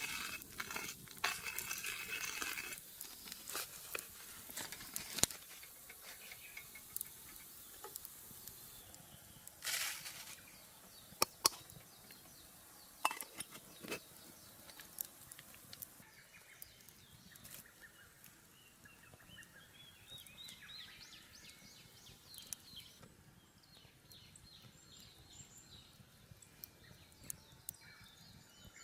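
Quiet outdoor camp sounds: scattered sharp clicks and light taps, with a short steady sizzle-like hiss at the start. Faint bird chirps come in the second half.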